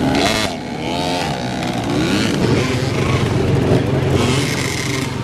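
Several dirt bike engines running together, revving up and down in short rises and falls over a steady low drone.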